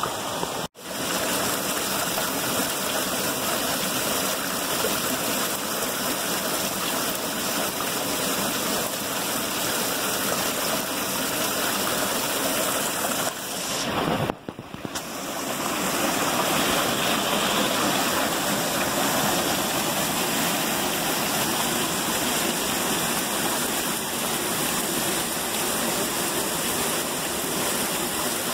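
Small canyon waterfall pouring over boulders: a steady rush of falling water that drops out briefly twice, about a second in and about halfway through.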